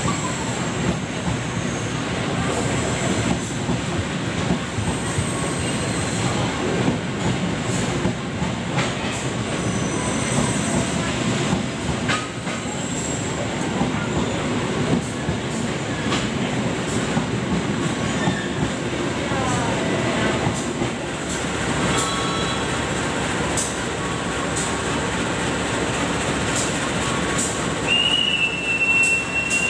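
Passenger train coaches running past close alongside the platform: a steady rolling rumble with wheel squeal and repeated clicks of wheels over rail joints. The rumble eases after about twenty seconds, and near the end a high steady tone sets in.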